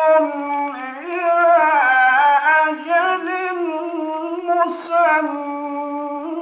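A male reciter chanting the Quran in long, melodically ornamented phrases, the voice held and bent through each note, with brief dips about a second in and near five seconds.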